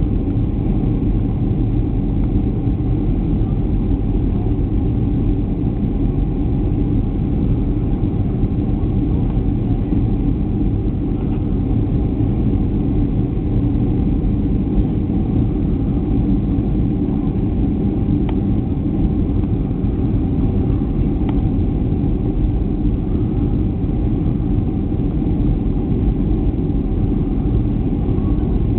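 Steady jet airliner cabin noise heard from a window seat during the approach to landing: a constant low rumble of engines and airflow with a steady hum above it.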